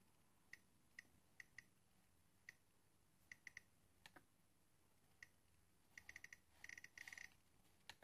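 Faint feedback ticks from a Nest Learning Thermostat as its outer ring is turned and clicked through the settings menu: single ticks spaced out at first, then quick runs of ticks near the end as the ring is turned faster.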